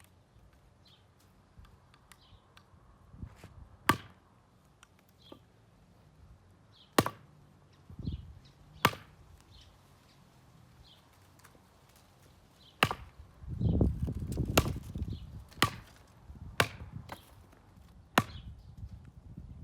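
Machete blade chopping into wood: about eight sharp strikes at an uneven pace, a second to three seconds apart, with a low rumbling knock partway through.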